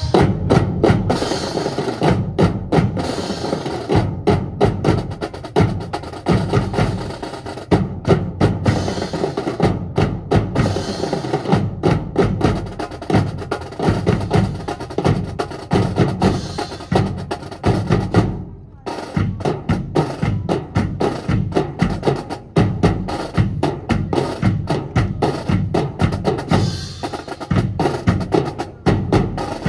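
A military drill team's drum section playing a fast marching cadence on snare and bass drums, with sharp stick clicks and rolls. There is a brief break about two-thirds of the way through before the drumming picks up again.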